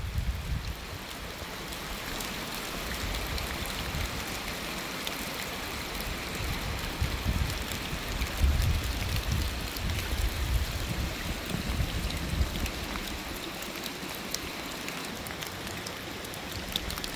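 Steady hiss of running and dripping water in a soaked forest, with scattered small drips. Uneven low rumbles of wind on the microphone come and go.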